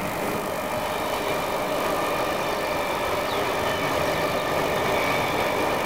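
A motor vehicle's engine running steadily, getting slightly louder.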